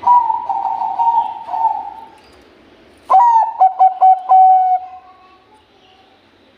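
Bangkok-type zebra dove (perkutut) cooing: a purring, trilling phrase for about two seconds, then after a pause a quick run of short clipped coos ending in a longer note that trails off.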